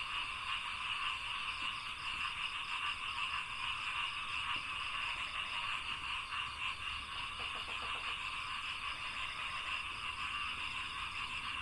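Dense chorus of many frogs calling together in a steady, overlapping din of rapid pulsing calls.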